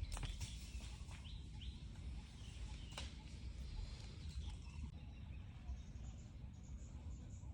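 Outdoor ambience: a steady low rumble with scattered short high chirps from small animals or birds, and one sharp click about three seconds in.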